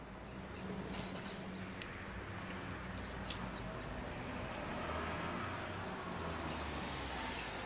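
Faint short chirps from small caged animals over a steady low background hum.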